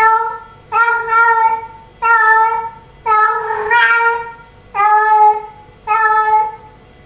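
Female cat in heat calling for a tom: a run of about six drawn-out meows, roughly one a second, each held on a fairly steady pitch.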